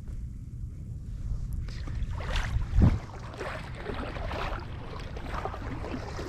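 Wind rumbling on the microphone, with handling rustle from about two seconds in and one dull thump about three seconds in.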